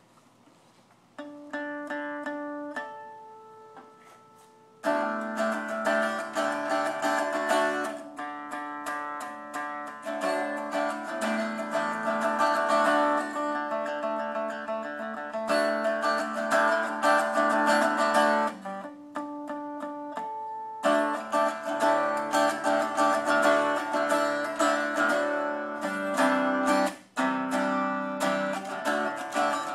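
Copper-bodied electric guitar played unplugged. A few single notes ring out, then steady picked and strummed chords start about five seconds in, with a brief break near the end.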